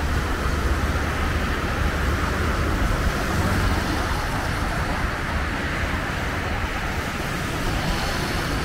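Steady road traffic on a wet road: passing cars and motorbikes, with tyre hiss over a low engine rumble.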